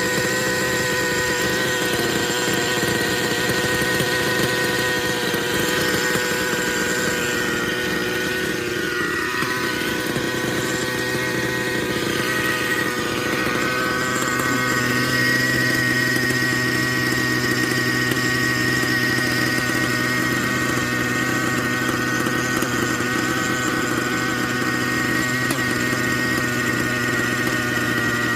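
Glow (nitro) engine of an Align T-Rex 700N model helicopter running steadily at idle, a constant high buzz with a fixed pitch.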